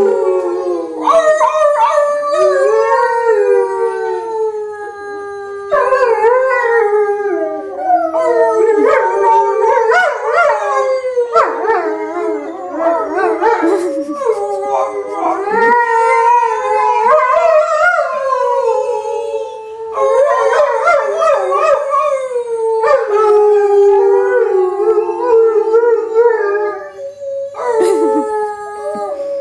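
Several dogs howling together in a chorus of long, overlapping howls that glide up and down in pitch, with fresh howls starting every few seconds.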